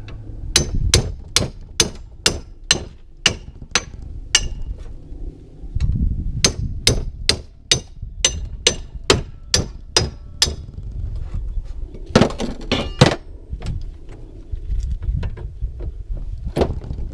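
Hammer blows, metal on metal, on a homemade tool driven into a garage door opener motor's stator to pry out the copper windings. Two runs of steady ringing strikes come at about two to three a second, then a quick cluster and a last single blow near the end.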